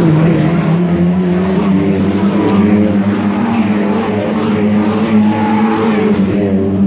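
Several Lightning Rod oval race cars' engines running as the pack passes through the bend, their overlapping engine notes rising and falling as each car goes by.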